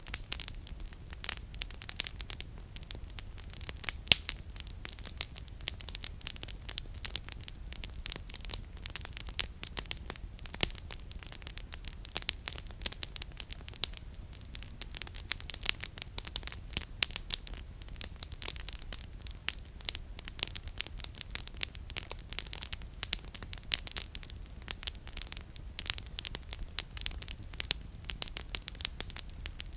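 Campfire of burning firewood crackling and popping, a dense run of irregular sharp snaps, one louder pop about four seconds in, over a steady low rumble.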